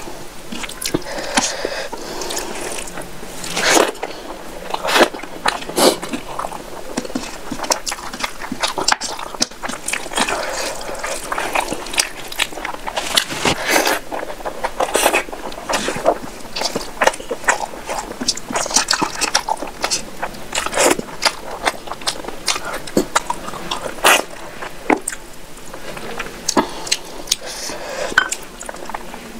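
Close-miked wet chewing and lip smacks of a mouthful of rice and curry eaten by hand, with squelching as fingers knead rice into curry on the plate. Many short, sharp smacks and clicks come one after another throughout.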